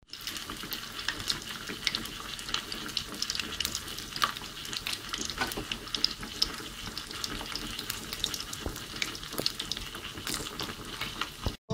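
Skin-on pork belly deep-frying in hot oil, its skin already blistered into crackling: a steady sizzle dotted with many small sharp pops and crackles. It cuts off suddenly near the end.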